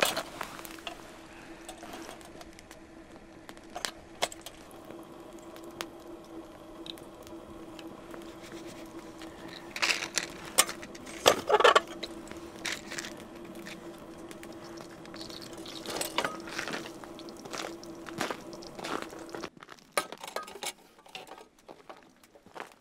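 Metal and glass clicks and clanks of a hurricane oil lantern being handled and lit, louder in two clusters in the middle. A steady low hum runs underneath and cuts off near the end.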